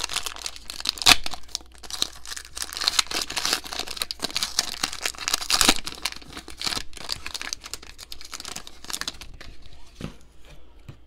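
A trading card pack's wrapper being torn open and crinkled by hand: a continuous crackle with sharper rips about a second in and again near the middle, quieter near the end.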